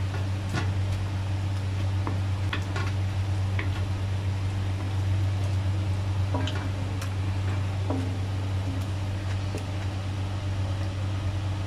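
Wooden spatula stirring a thick stew in a stainless steel pan, with scattered scrapes and light taps against the metal, over a steady low machine hum.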